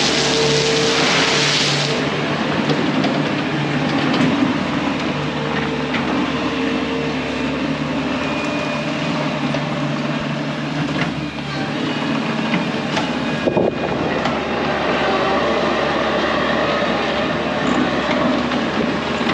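Bobcat T630 compact track loader's diesel engine running steadily under work, with clattering from the tracks and machine. A loud hiss sounds over the engine for the first two seconds.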